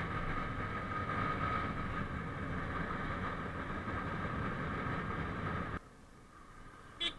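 Steady engine and road noise of a motorcycle being ridden, heard from a camera mounted on the bike. It drops away abruptly near the end, and a couple of short sounds follow.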